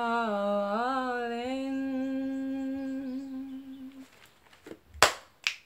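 A woman singing unaccompanied, holding one long note on the word "calling" for about four seconds as it fades out. About a second later come two sharp knocks, half a second apart.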